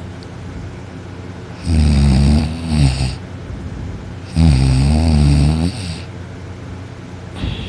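A man snoring loudly in sleep: two long snores, each about a second and a half, coming a little under three seconds apart.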